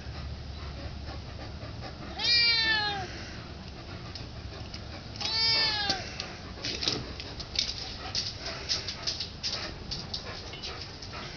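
Domestic cat meowing twice for food, two drawn-out meows about three seconds apart, each rising then falling in pitch. Then a run of short clicks and taps.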